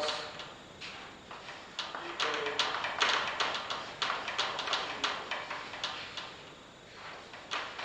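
Chalk on a chalkboard as equations are written by hand: a run of sharp, irregular taps, several a second, with short scratchy strokes between them.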